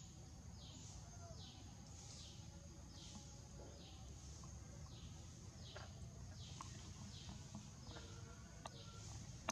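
A bird calling over and over, a faint series of high notes that each slide downward, about three every two seconds, over a low steady rumble. A few small clicks come in near the end.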